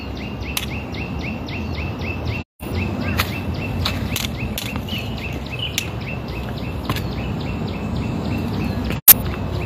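A high chirp repeated rapidly, about five times a second, from a wild animal on the hillside, over a low rumbling noise; the sound cuts out briefly twice, and a sharp click comes near the end.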